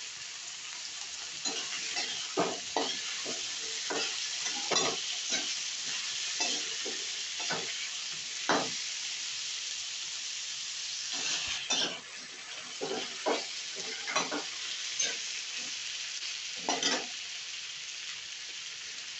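Diced potatoes frying in hot oil in a metal kadhai with a steady sizzle, while a metal spatula stirs them, scraping and knocking against the pan again and again at an uneven pace.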